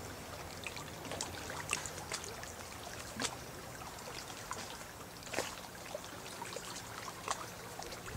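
Water trickling and lapping at a riverbank, with a faint steady low hum and scattered short high ticks.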